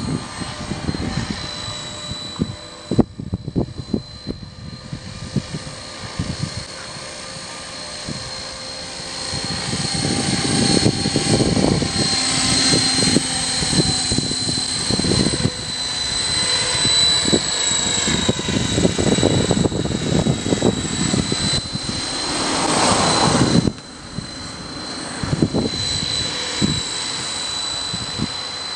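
KDS Innova 550 electric RC helicopter in flight: a steady high-pitched motor whine over the main rotor's whoosh. It grows louder as the helicopter passes close in the middle, and the level drops suddenly about three-quarters of the way through.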